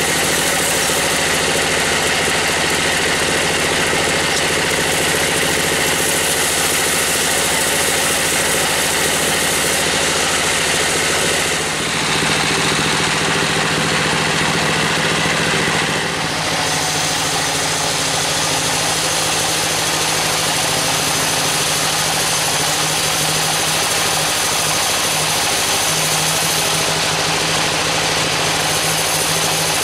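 Sawmill bandsaw running steadily, a continuous machine drone with a high hiss, its blade sawing through a teak board at the start. The sound changes abruptly about twelve and again about sixteen seconds in.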